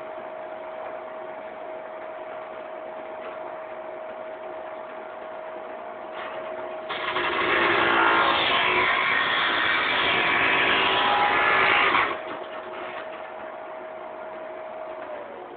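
Cut-off machine's motor running with a steady whine. About seven seconds in, the blade cuts into a workpiece for about five seconds, a much louder, harsh cutting noise. It then runs free again and starts to wind down near the end.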